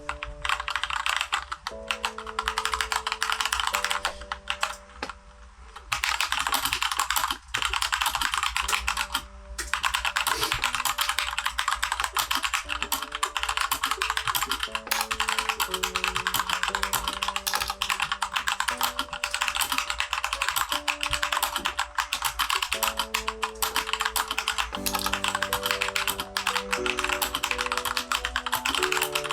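Fast, continuous typing on a Keychron K2 mechanical keyboard with factory-unlubed Gateron switches: a dense run of key clicks with a couple of brief pauses. Soft background music plays underneath.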